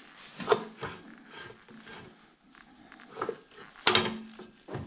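Sparse metal clinks and knocks of a wrench against the clutch pressure plate and its bolts as the clutch is bolted onto the flywheel, the sharpest knock about four seconds in.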